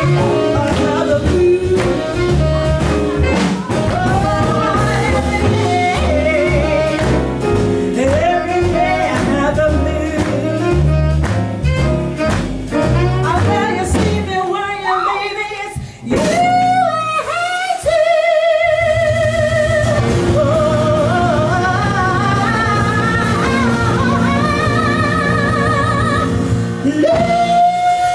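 Live jazz band playing a slow blues, with a walking double bass under the first half. About halfway through the band thins out briefly, and a melody line held with heavy vibrato carries on over sustained accompaniment.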